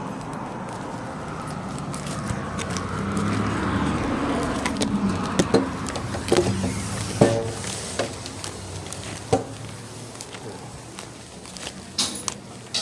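Street traffic ambience, then a series of knocks and clunks as a glass entrance door with aluminium pull handles is pulled open and handled, and a brief rattle near the end.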